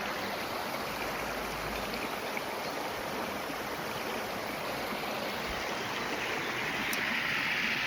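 Flowing water: a steady rushing hiss that grows a little louder and brighter near the end.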